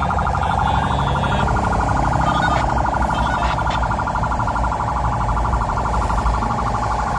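Ambulance siren in a rapid pulsing warble, a steady high tone chopped many times a second, over the low rumble of the vehicle's engine and road noise.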